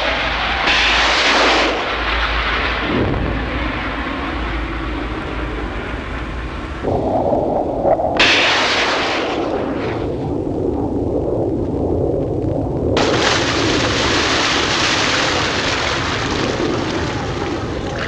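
Jet aircraft in flight: a loud, steady rushing jet-engine noise that shifts abruptly several times, turning brighter and more hissing about a second in, again around eight seconds in and from about thirteen seconds in.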